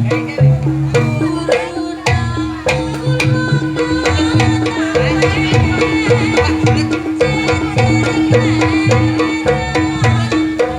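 Traditional Javanese barongan music: hand drums beat a fast, even rhythm under a steady held tone, with sharp percussion strokes and a high wavering melody rising over it in the middle.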